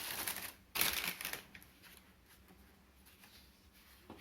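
Packaging crinkling and rustling as a cordless phone handset is unwrapped, with a short break under a second in, dying down about a second and a half in to faint handling sounds.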